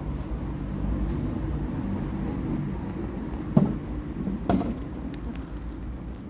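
Steady low rumble of outdoor urban background noise, with two brief louder sounds about three and a half and four and a half seconds in.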